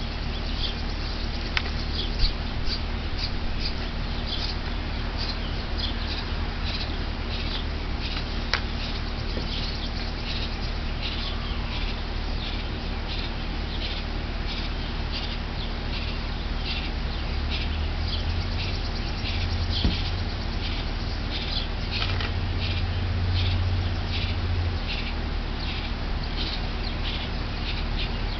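Outdoor ambience: short high chirps repeating about twice a second, over a low steady rumble that grows louder in the second half.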